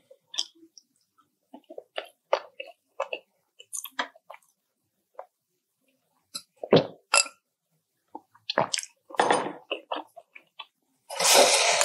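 Close-miked eating of balut (boiled fertilised duck egg): scattered wet mouth clicks and chewing, growing into louder wet bursts in the second half, with a long wet slurp near the end.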